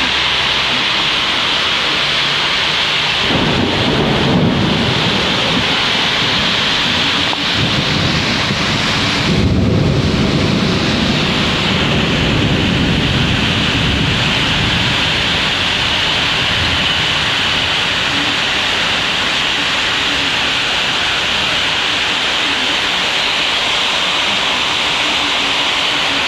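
Cloudburst rain pouring down in a steady heavy hiss, with rolls of thunder rumbling underneath: one about three seconds in and a longer one starting about ten seconds in.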